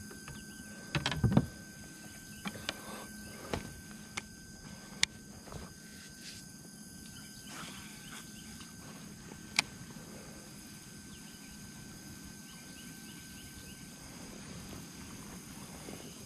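Quiet pondside ambience with a steady faint insect chirring, broken in the first ten seconds by a few sharp clicks and knocks from the fishing rod, reel and kayak being handled.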